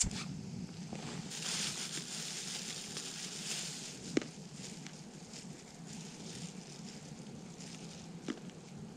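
Small camp stove catching with a sudden start and then burning with a steady hiss over a low rumble. Two sharp clicks or taps, the louder about four seconds in.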